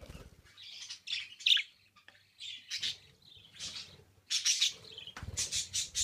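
Pet budgerigars chirping in short, high, broken calls, with a brief lull about two seconds in and a denser flurry of calls near the end.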